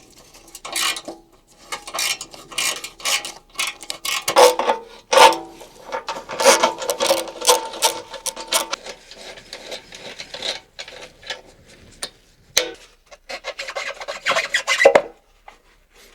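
Hand tools working the bolts and clamps of a motorcycle's stock exhaust silencer: irregular runs of rapid clicking and scraping with short metallic clinks, pausing briefly partway through and stopping near the end.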